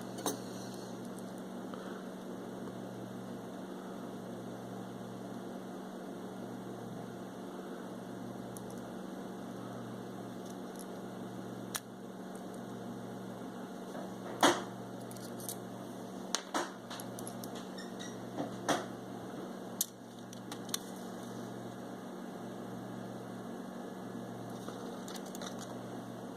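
Steady electrical hum with a low throb that pulses on and off about once a second, broken by a handful of small sharp clicks and taps, the loudest about halfway through.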